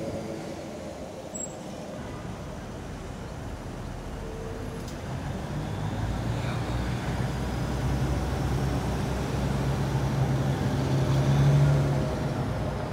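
Diesel work locomotive running with a low, steady engine hum as it moves a train of new subway cars slowly along the track. It grows louder to a peak about eleven seconds in, then eases off.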